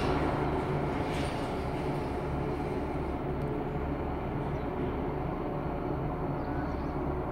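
A steady low rumble with a faint hum and no distinct events.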